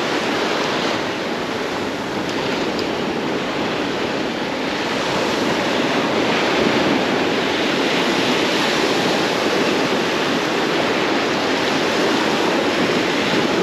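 Ocean surf washing steadily onto a beach, a continuous rushing noise with gentle swells in level.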